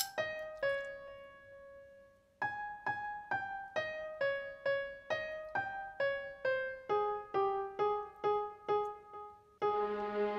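Background music: a piano-like keyboard playing an even run of single notes, about two or three a second, with one held note and a short pause about a second in, and fuller, lower notes joining near the end.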